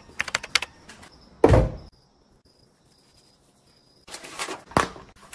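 Light footsteps, then a loud heavy thump about a second and a half in. After a near-silent pause, wet hands rubbing together near the end.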